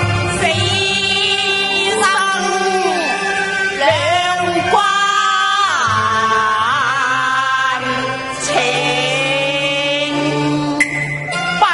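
Cantonese opera music: a melodic line that slides and wavers in pitch over instrumental accompaniment.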